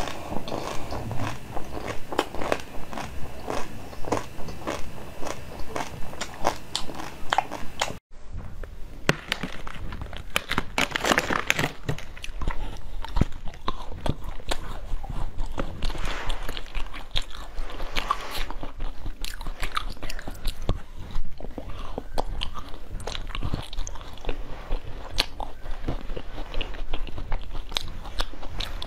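Close-miked eating: crunching bites and chewing of frozen chocolate-coated treats, then, after an abrupt cut about eight seconds in, slower bites and chewing of frozen durian flesh.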